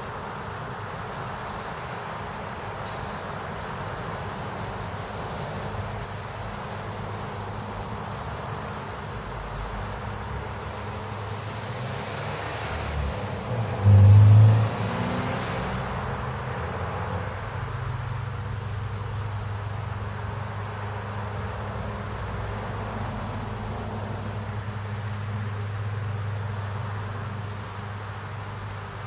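A car passes on the street about halfway through, swelling and fading, with a brief loud low rumble as it goes by. A steady low engine hum follows until near the end, over a steady background hiss.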